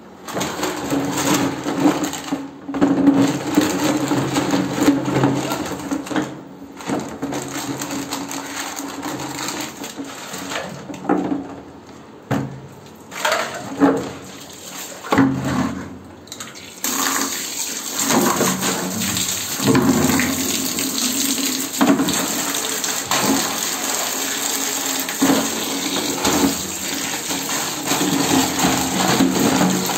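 Soapy water sloshing and splashing in a plastic bucket as things are scrubbed and swirled by hand, in uneven bursts. About halfway through, a tap starts running steadily into the bucket.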